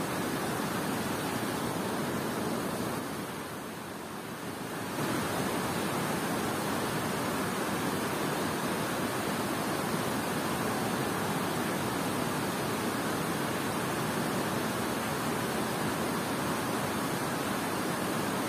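Floodwater pouring over a concrete dam spillway into a fast river: a steady rushing noise. It is briefly quieter for a couple of seconds about three seconds in.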